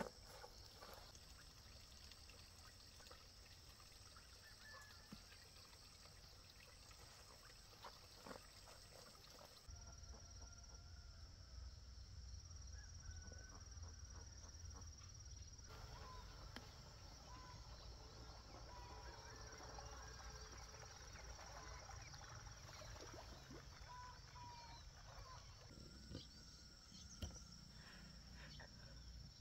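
Faint outdoor ambience: a steady high insect drone with scattered short bird chirps and a few soft clicks.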